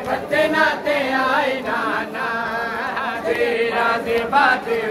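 Male voices chanting a Punjabi noha, a Shia mourning lament, with a crowd of men singing along.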